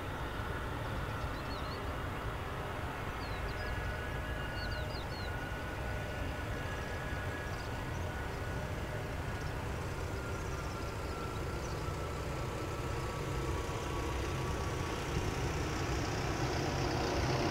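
Airbus A320neo's jet engines running at low taxi thrust, heard from a distance as a steady rumble with a faint whine, growing slightly louder near the end.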